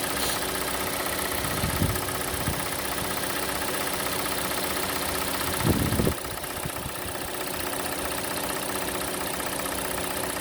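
Hyundai/Kia G4NA 2.0-litre four-cylinder idling steadily while still warming up from cold, with a tapping that the owner suspects comes from the hydraulic lifters. A brief low thump about six seconds in, after which the sound is a little quieter.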